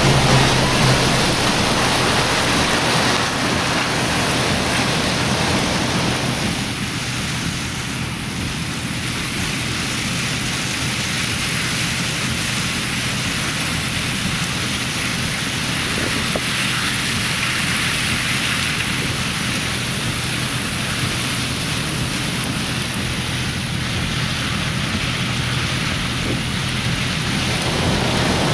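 Hurricane wind and heavy wind-driven rain, a steady rush of noise heard from inside a car.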